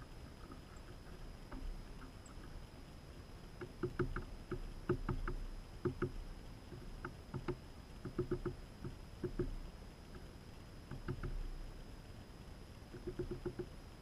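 A male northern cardinal pecking and cracking seed at a hanging feeder: quick taps and clicks in bursts of several a second, with short pauses between.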